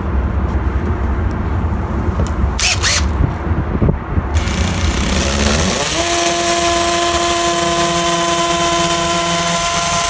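Cordless drill spinning up with a rising whine a little under six seconds in, then running steadily as a small bit pre-drills a pilot hole into the brick for mounting screws. Before that there is a low rumble with a couple of clicks.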